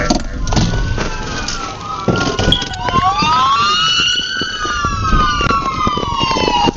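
Police car siren wailing, its pitch sliding slowly up and then falling away, over a noisy, knocking background.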